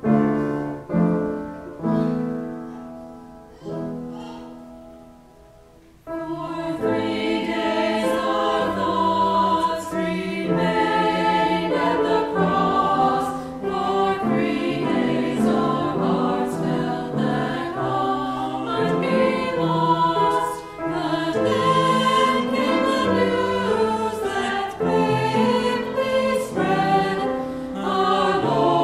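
Piano chords ringing and dying away for the first few seconds, then a small mixed church choir comes in about six seconds in, singing an anthem in parts.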